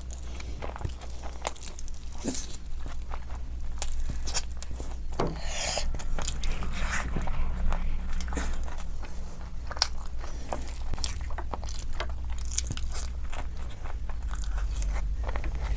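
Close-miked eating: biting and chewing crispy fried food, with many small crunches and crackles over a steady low hum.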